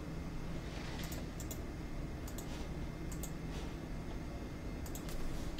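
Computer keyboard keystrokes and clicks, sparse and irregular, coming closer together near the end, over a steady low hum.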